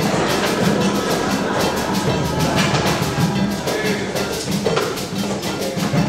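Percussion-led music with a fast, steady beat of sharp strikes.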